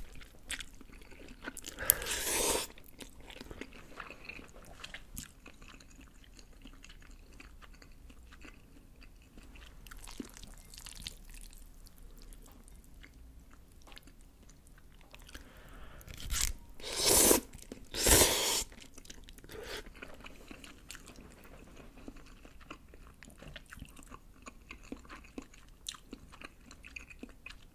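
A person eating Buldak spicy stir-fried instant noodles up close: quiet chewing throughout, with a loud slurp about two seconds in and two more close together about two-thirds of the way through.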